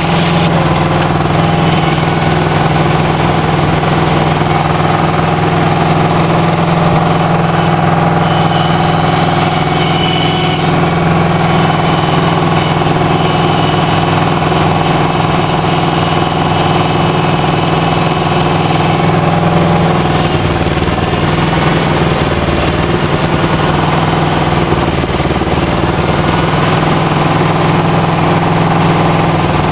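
Aquatic weed harvester's engine running steadily under load, with a strong low hum and many overtones; the note sags briefly a couple of times in the last third.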